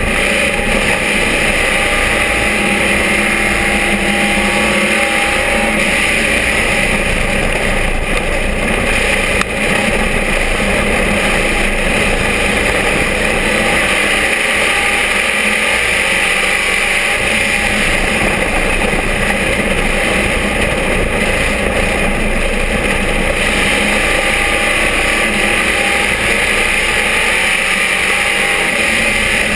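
Vintage dirt-track race car's engine running at speed, heard from inside the cockpit as a loud, steady mix of engine and road noise. There is a brief dip in loudness about nine and a half seconds in.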